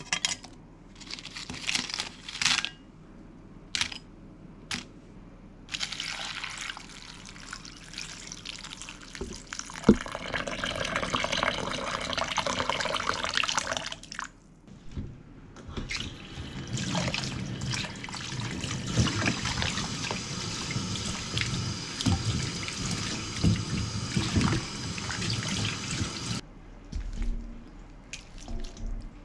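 Dried sardines (niboshi) tipped into a glass bowl with a few light clinks, then water poured into a glass bowl of kombu and dried shiitake, splashing in two long spells.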